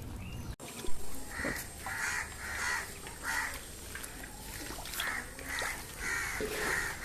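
A run of short, harsh animal calls, about two a second in groups, starting about a second and a half in, with a short knock just before.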